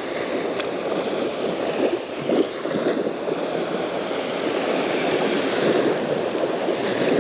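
Small waves breaking and washing up a sandy beach at the water's edge: a steady rushing surf that swells slightly now and then.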